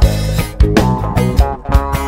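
Live band playing an instrumental passage: acoustic guitars and electric bass over a drum kit, with sharp drum and cymbal hits standing out.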